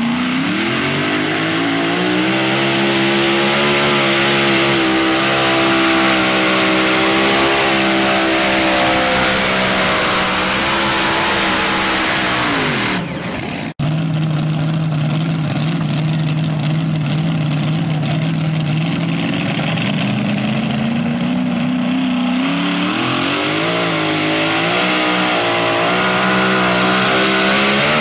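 Mini modified pulling tractor's supercharged engine revving hard and held at high revs, dropping away about halfway through. After a sudden break it runs steady, then revs climb over the last several seconds as the tractor launches and pulls the sled.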